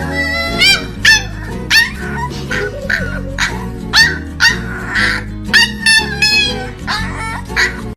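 A dog barking again and again, short sharp barks about twice a second, over background music.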